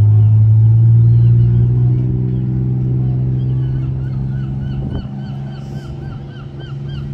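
Engine of a replica pirate-ship tour boat droning as it motors out of the harbour, rising slightly in pitch and fading as the boat moves away. From about three seconds in, a gull calls in a fast repeated series of short cries.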